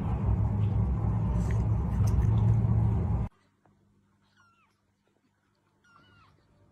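A steady low rumble with hiss, cutting off suddenly about three seconds in. Then, in near quiet, a tiny kitten gives two faint, high mews about two seconds apart.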